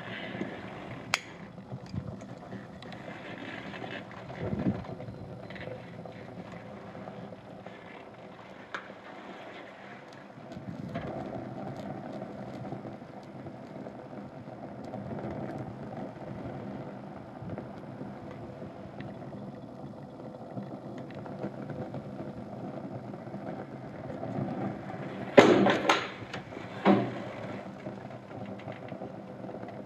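Fire burning on Adidas sneakers: a steady rushing with scattered small crackles and pops, and two short, much louder flares about three seconds apart near the end.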